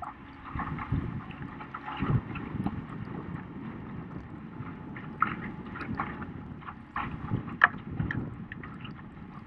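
Wind buffeting the microphone of a camera on a boat over choppy water, with irregular splashing and water slaps throughout.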